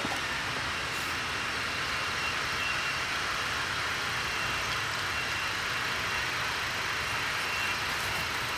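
Steady running of a neighbour's powered yard-work machine heard at a distance: an even, unbroken hiss with a faint whine in it.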